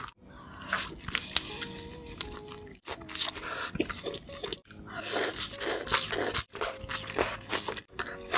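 Close-miked eating: crisp bites and crunching of fried food with wet chewing and squishing mouth sounds. The sound is cut into several short pieces with abrupt silent gaps between them.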